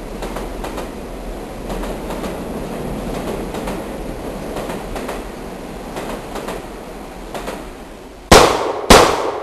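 Steady rumbling noise with faint scattered clicks, then two loud sharp bangs about half a second apart near the end.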